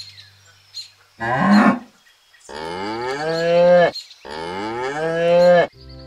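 Cow mooing: one short moo about a second in, then two long moos that drop in pitch at the end.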